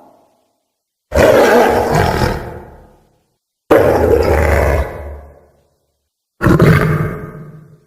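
Three separate roars from a cartoon bug monster sound effect. Each starts abruptly and fades out over a second or two, with a short silence between them.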